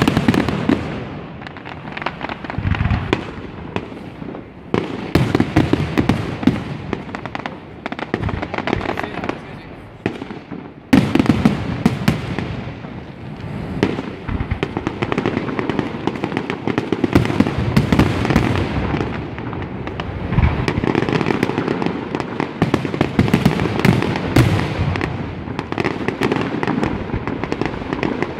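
Aerial fireworks shells bursting one after another in quick succession, with dense crackling between the bangs. A loud burst hits right at the start and another about eleven seconds in.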